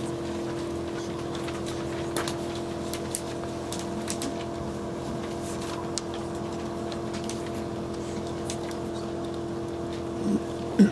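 A steady low mechanical hum with a few faint clicks, and a brief louder sound near the end.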